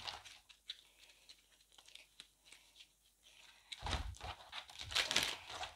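Tarot cards being shuffled by hand: faint rustling and light clicks of card on card, growing louder about four seconds in as the deck is handled more firmly.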